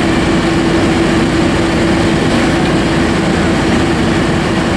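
Fire truck diesel engine running steadily at high revs to power the aerial ladder and pump, a constant loud drone with a steady low hum.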